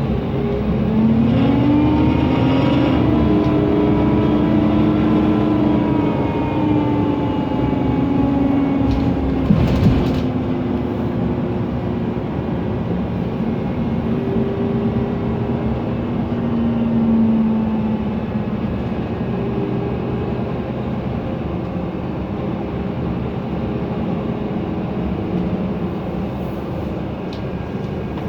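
Mercedes-Benz Conecto NGT city bus, its OM 936 G gas engine and noisy cooling fan running, with whining tones that slowly rise and fall in pitch. A short knock about ten seconds in.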